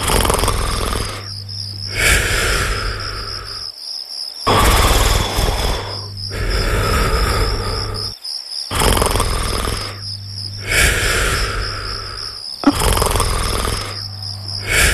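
Drawn-out, rumbling human snoring, one long breath about every two seconds, over a steady chirping of crickets.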